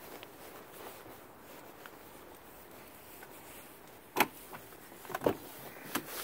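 A few sharp clicks and clunks about four to six seconds in, the loudest first, over a faint background: the driver's door handle and latch of a 1998 GMC K1500 pickup being worked and the door opened. The engine is not running.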